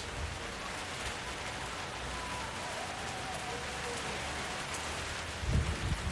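Steady rain falling, an even hiss of many drops. Near the end a loud, deep rumble starts to build.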